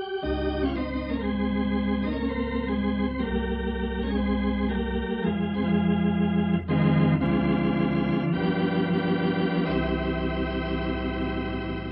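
Organ music bridge of a radio drama: sustained chords over a deep bass, shifting every second or so and settling into a long held chord in the last few seconds, marking a change of scene.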